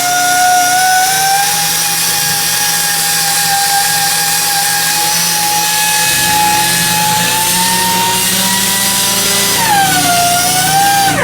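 Handheld electric power tool running continuously with a steady whine that creeps slowly up in pitch, dips briefly about ten seconds in, recovers, then stops abruptly near the end.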